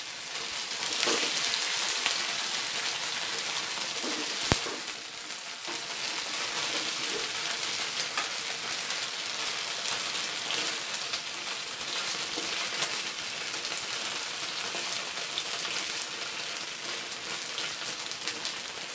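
Chive cakes shallow-frying in oil in a nonstick pan: a steady sizzle with small crackles. A single sharp click about four and a half seconds in.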